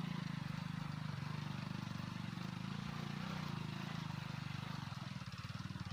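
Vehicle engine running steadily at low speed, a low hum with a fast, even pulse, as the vehicle crawls along a rough dirt road at about 7–8 km/h.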